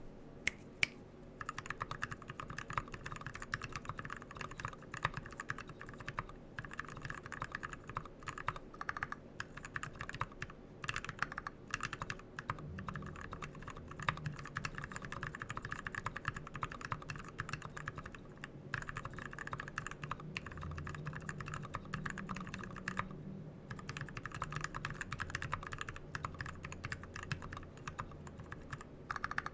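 Continuous fast typing on a 40% HHKB-layout mechanical keyboard with a brass plate, hotswap PCB and XDA keycaps, fitted with 68 g Zealio tactile switches that are lubed with Tribosys 3204 and filmed. A dense stream of keystroke clicks, broken by a short pause about two thirds of the way through.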